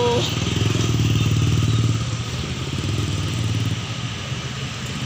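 Motor scooter and motorcycle engines running as they pass close by on a road. The engines are loudest in the first two seconds and then die down.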